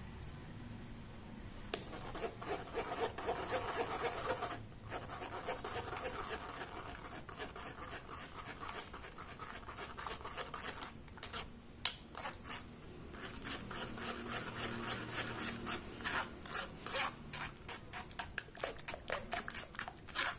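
Steel spoon scraping and pressing blended tomato pulp through a stainless steel mesh strainer: quick, repeated rasping strokes of metal on wire mesh, beginning about two seconds in, with a short break and a few sharp clicks of the spoon against the strainer rim.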